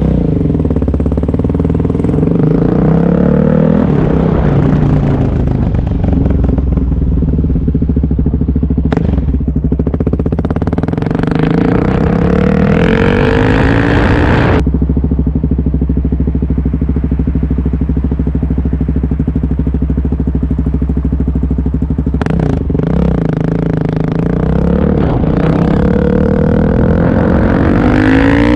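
2020 Suzuki DR-Z400S single-cylinder four-stroke engine running through an unbaffled MRD Z-Pro exhaust, warmed up, as the bike pulls away and accelerates in rising sweeps of pitch. About halfway through, the throttle is shut suddenly and the engine settles into a steady beat, then it revs up again through rising sweeps near the end.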